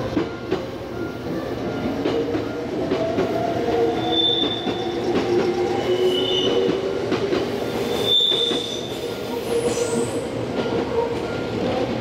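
Red Meitetsu electric train passing over a level crossing, with a whine that glides in pitch and brief high wheel squeals about four and eight seconds in. A crossing alarm bell rings about twice a second throughout.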